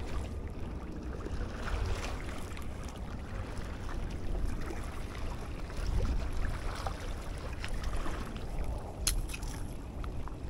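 Steady wind rumble on the microphone over the sound of open water, with a single sharp click about nine seconds in.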